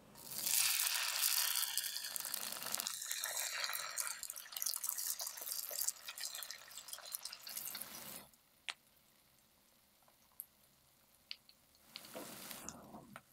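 Grated potato pancake batter sizzling in hot vegetable oil in a frying pan as it is spooned in and spread with a wooden spoon. The sizzle cuts off abruptly about eight seconds in, leaving a few light clicks, and a softer sizzle rises again near the end.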